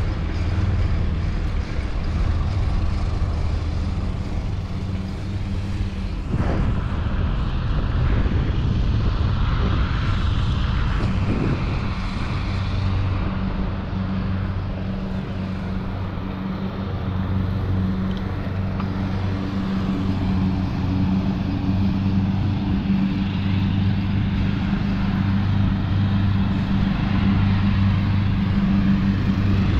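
Wind and road noise from riding a bicycle along a paved road, with a steady low hum underneath.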